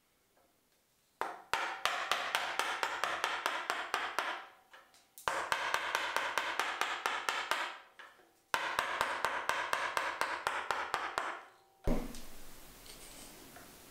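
Wooden mallet tapping a chisel into an oak strip held in a vice: three runs of quick, even taps, about five a second, each lasting a few seconds. A single sharper knock near the end.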